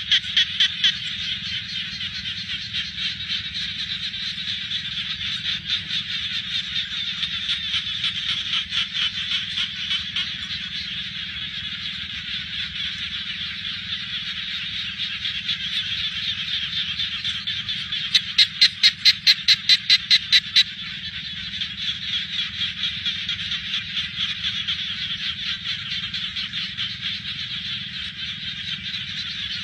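A chorus of frogs calling together as a dense, steady pulsing trill. About two-thirds of the way through, one nearer frog gives a louder run of about a dozen quick pulses lasting a couple of seconds.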